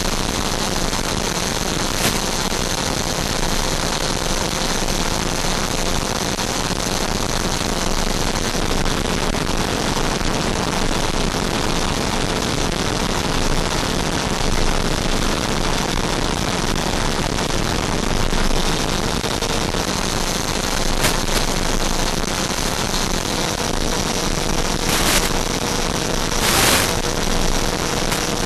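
Onboard audio of an RC jet in flight: a steady rushing hiss of airflow and electric ducted fan, with a faint steady whine under it. Several short crackles of static come near the end.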